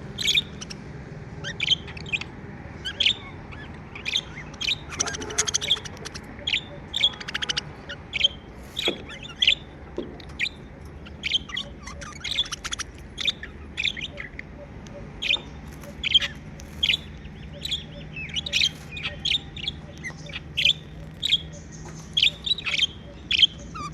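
Pet budgerigars chirping: short, sharp, high chirps repeating about once or twice a second, with a few longer warbling calls mixed in.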